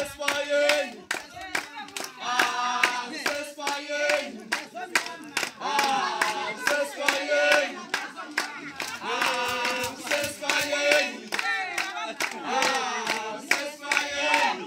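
A group singing together with steady rhythmic hand clapping.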